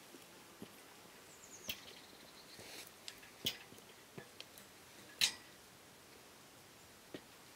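Scattered faint clicks and clinks of a climber on an iron via ferrata ladder: carabiners and boots knocking on the metal rungs and cable. The sharpest, ringing clink comes about five seconds in, and a short falling whistle sounds early on.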